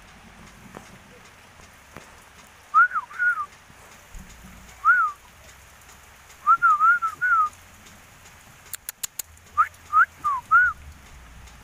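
Sooty-headed bulbul singing in four short bursts of quick, rising-and-falling whistled notes a couple of seconds apart, with rain in the background.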